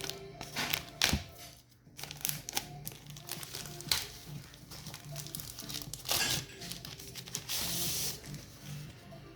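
Plastic packaging crinkling and rustling with sharp clicks, and a tearing sound lasting about a second, a little over seven seconds in, over soft background music.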